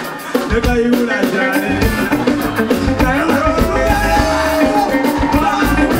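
Live band music: drum kit and guitar playing a steady groove, with a voice singing over it.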